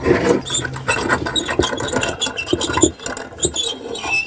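Small wheel squeaking as it turns, a run of short squeaks and clicks, used in foley to stand in for the wheels of a rolling stretcher.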